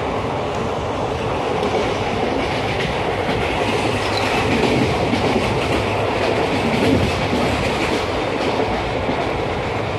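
Steady running noise of a passenger train moving at speed, heard from inside a carriage at a barred window: wheels on the rails and rushing air, with no let-up.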